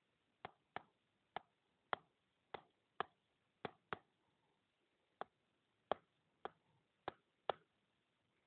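Stylus tapping on a tablet screen while handwriting: about a dozen faint, sharp taps at uneven intervals, with a pause of about a second midway.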